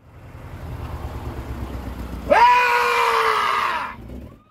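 A rushing noise with a low rumble swells for about two seconds, then a loud, high scream cuts in and is held with slightly falling pitch for about a second and a half before stopping abruptly.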